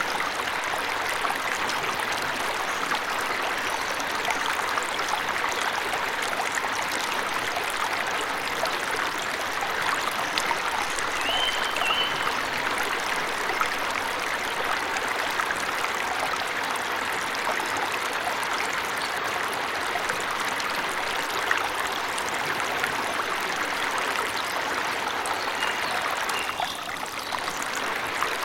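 Waterfall rushing steadily, with a bird giving short high chirps twice, about midway and near the end.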